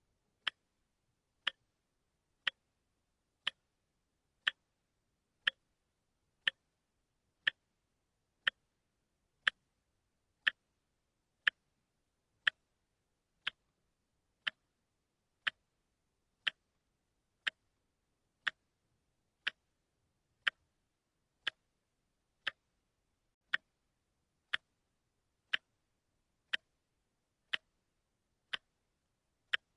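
A watch ticking steadily, one sharp tick each second with silence between.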